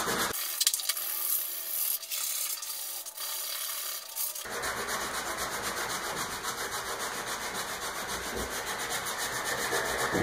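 Hand sanding: 80-grit sandpaper on a sanding block scraping back and forth over small wooden brackets. About four seconds in the sound becomes fuller and settles into quick, even strokes.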